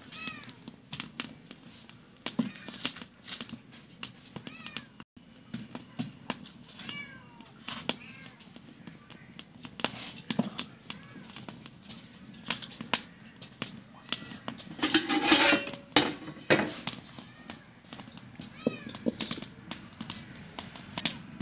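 A cat meowing a few times over scattered clicks and knocks as stones and a metal wok are set on a small fire stove. About fifteen seconds in, a two-second burst of rushing noise is the loudest sound.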